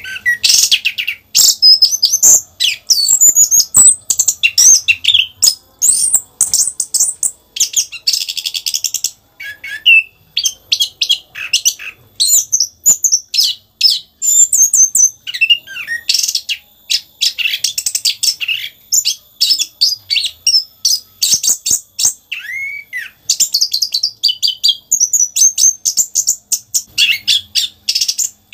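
Chestnut-capped thrush (anis kembang) singing a long, almost unbroken song of varied high whistles, trills and fast pitch sweeps, with only brief pauses. This is the nonstop rolling 'rock n roll' (ngerol) delivery of a bird in full song.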